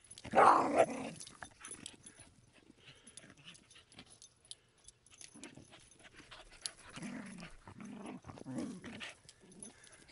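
Two small dogs play-fighting, growling and scuffling, loudest in one burst about half a second in, then quieter.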